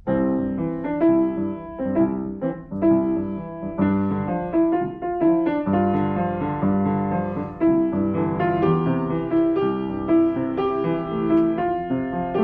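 Solo piano playing a Broadway show tune, a new piece starting suddenly with a full chord, then melody over chords and a steady bass line.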